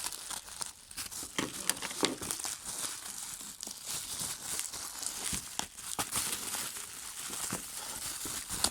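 Bubble-wrap packaging being unwrapped by hand, crinkling steadily with many sharp crackles and some tearing.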